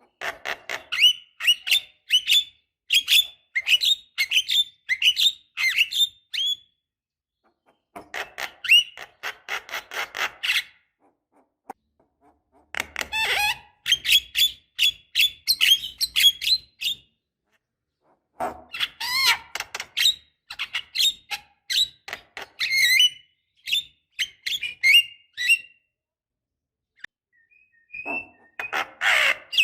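Javan myna (jalak kebo) singing in bouts of rapid, repeated chattering and whistled notes: five phrases broken by short pauses.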